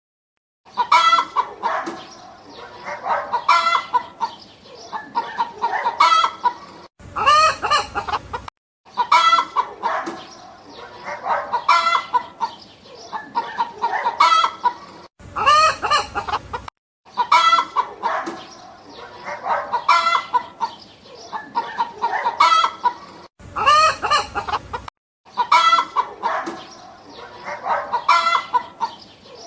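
Chickens clucking in short repeated calls, with a rooster crowing three times, about every eight seconds, between runs of clucking.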